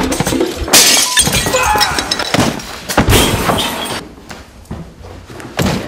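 Loud crashing and breaking as an acoustic guitar is smashed, with a second burst of crashing about three seconds in. A sharp knock near the end.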